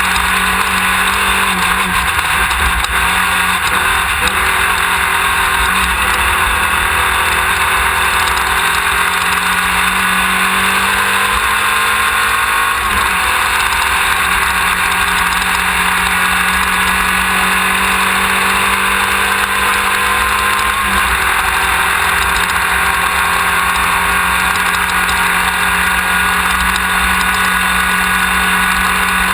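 Desert race car's engine running hard under load, its pitch slowly rising and falling, with a couple of abrupt changes such as shifts, under a heavy constant din of wind and driving noise. The car appears to be a Class 1600 buggy with an air-cooled 1600 cc VW engine.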